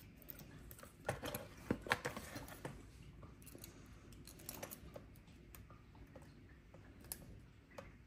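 Faint, scattered clicks and light metal scrapes of a lock pick and tension wrench being worked in the keyway of a Master Lock M830DLH padlock, busiest in the first few seconds and sparser after.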